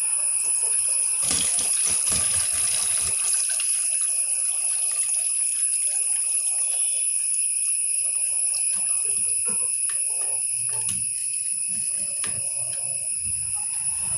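Salt brine pouring and splashing out of a tipped pickle jar into a plastic strainer, with the salted hog plums (ambazhanga) tumbling in and knocking against it. The splashing is loudest in the first few seconds, with scattered knocks near the end, all over a steady high-pitched whine.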